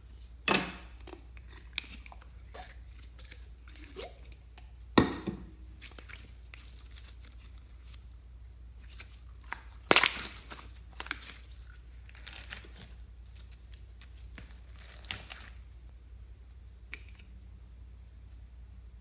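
Slime being handled, giving irregular crunches and crackles. There are sharp louder snaps about 5 seconds in and again around 10 seconds, with softer crackles between.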